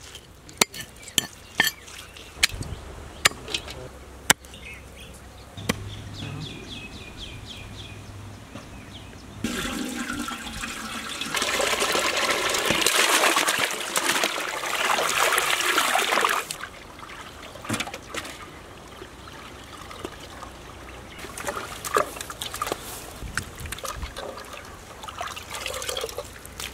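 A heavy knife chopping snakehead (murrel) fish on a wooden block, a run of sharp strikes in the first few seconds. From about ten seconds in, water is poured over the cut fish pieces in a metal basin: a loud splashing rush lasting about seven seconds, followed by quieter dripping and handling.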